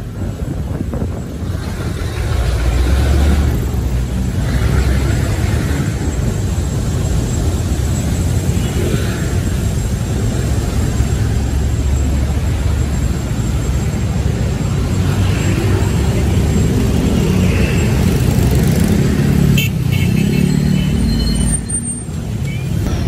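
A motor vehicle on the move in traffic: steady engine and road rumble, with an engine note standing out more in the second half.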